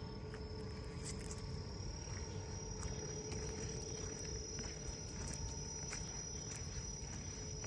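Insects trilling steadily in one continuous high-pitched tone, over a low background rumble.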